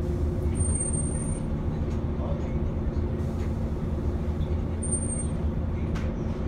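Volvo B7TL 7.2-litre diesel engine of an Alexander ALX400 double-decker bus, heard from inside the saloon as a steady hum. Two brief high-pitched whines cut through, about a second in and again about five seconds in.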